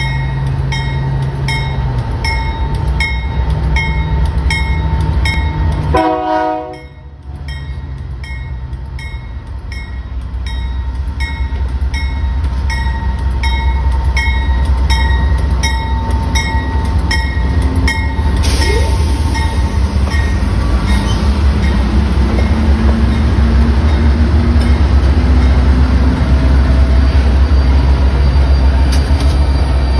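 Diesel locomotives of a Union Pacific consist running with a steady low rumble, while a bell rings about twice a second for the first half; after the bell stops the engines throttle up, their pitch slowly rising and growing louder as the train pulls away.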